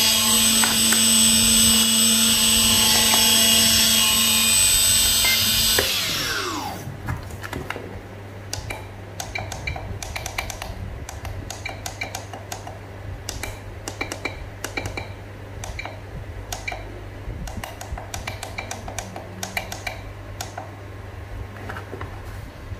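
RC plane's electric motor running its propeller at throttle with a steady whine, then spinning down with a falling pitch about six seconds in as the throttle is cut. After that, scattered small clicks.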